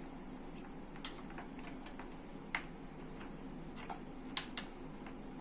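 Irregular small plastic clicks and taps as a plastic clip is worked onto a plastic bassinet frame by hand, the sharpest about two and a half seconds in and again a little after four seconds.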